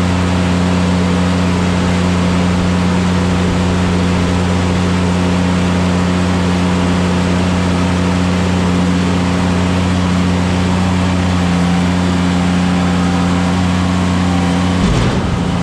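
An engine running steadily at one constant speed, with a strong low hum; it cuts off suddenly near the end.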